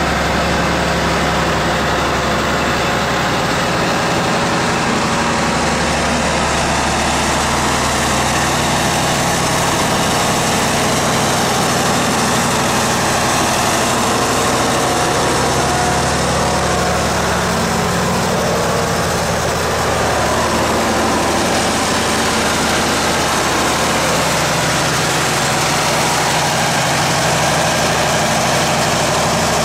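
1975 Jelcz 021 articulated bus's diesel engine idling steadily with the bus standing still.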